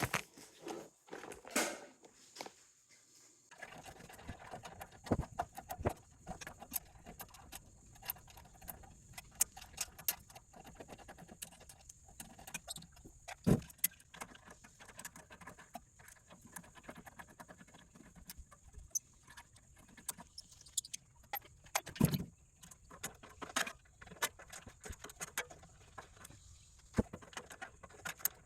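Hand tools clinking and clicking on the metal of a pump unit as it is unbolted and taken apart, with two sharper knocks, about halfway through and again later.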